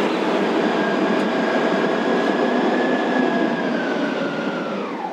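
Motorboat running underway: a steady engine and water noise, with a faint high whine that drops in pitch near the end.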